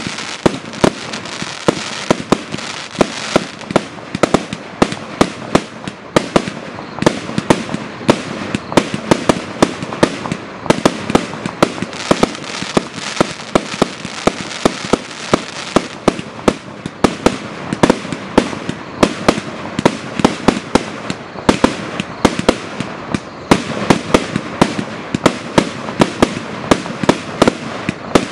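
A 100-shot firework cake firing shot after shot, with sharp bangs two or three times a second over a constant crackling, hissing background.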